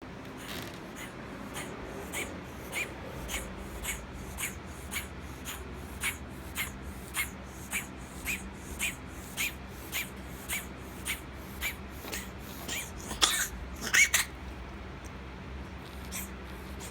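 A Burmese cat in a coughing fit: a long run of short, regular hacking coughs about two a second, ending in two or three louder, harsher hacks about thirteen seconds in. The owner has not yet found the cause and suspects asthma, hairballs or Bordetella bronchiseptica.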